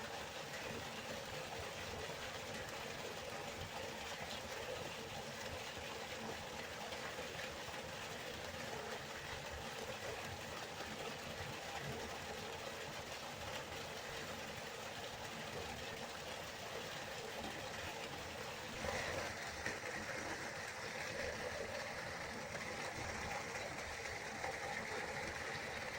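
Waterfall: a steady rush of falling water. About three-quarters of the way through, the sound turns brighter and a little louder and stays that way.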